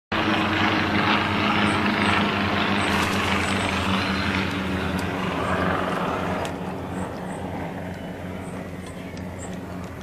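Engine noise from a passing motor, a steady low drone with a hiss over it that slowly fades away. A few faint, short high chirps sound in the first few seconds.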